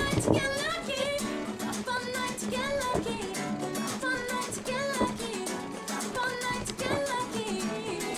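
Background music: a song with a sung melody over plucked guitar and a steady beat.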